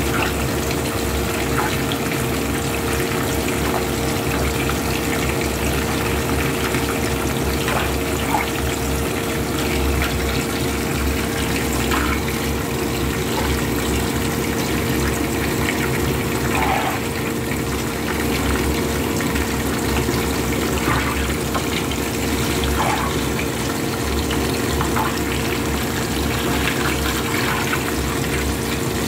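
Whole fish frying in hot oil in a pan: a steady bubbling sizzle with occasional small pops. A steady low hum runs underneath.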